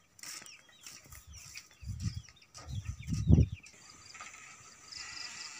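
Chickens in the yard, many short high falling peeps, with a few dull thumps around the middle as a woven-bamboo door is handled and pushed open.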